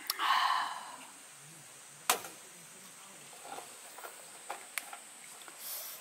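A drink can being handled: a short breathy rush at the start, a sharp knock about two seconds in, then a few light clicks, over a faint steady high-pitched tone.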